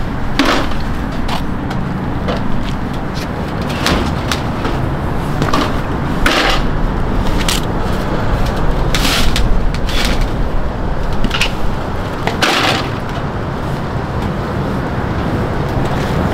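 Packs of 2-liter plastic soda bottles knocking and clattering as they are pulled from a delivery truck's side bays and stacked on a hand truck: about ten sharp knocks and scrapes over a steady low rumble.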